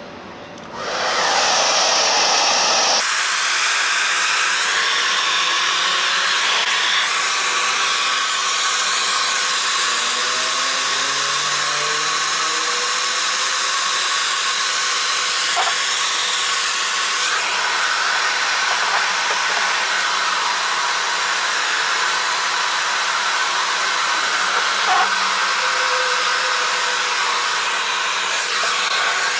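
Handheld hair dryer switched on about a second in and running steadily, blowing hot air onto a dented plastic car bumper to soften it; its tone shifts slightly a couple of times.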